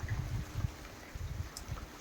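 Heavy rain falling, a faint even hiss, with low irregular rumbles on the phone's microphone in the first second or so and a few faint drip ticks.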